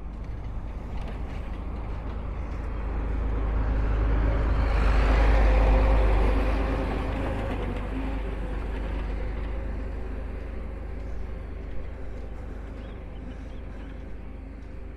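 A motor vehicle's engine passing by, swelling to its loudest about five or six seconds in and then fading away.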